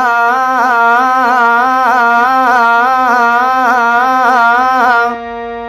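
A man singing a fast two-note alankar on the vowel "aa", alternating rapidly and evenly between dha and ni in Hindustani riyaz style, over a steady harmonium drone. The singing stops about five seconds in, and the drone holds on.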